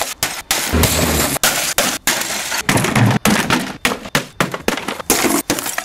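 Sledgehammer blows smashing a computer monitor and wooden furniture: crashing and cracking, chopped into many short pieces that stop abruptly every fraction of a second.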